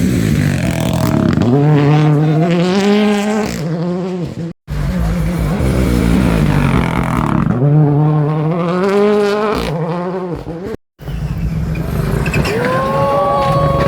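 Rally cars driven hard on a gravel special stage, the engine note climbing and falling as each car passes. Two abrupt cuts, about a third and two-thirds of the way through, split it into three separate passes.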